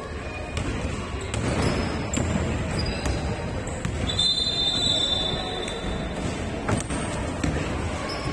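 Basketball bouncing on a court during play, a few separate thuds over a constant noisy background, with some short high squeaks around the middle.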